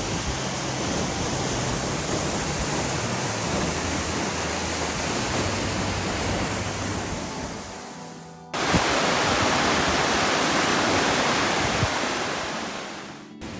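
Waterfall roaring, a steady loud rush of falling water. It fades down about eight seconds in, then cuts back in louder and fades out again near the end.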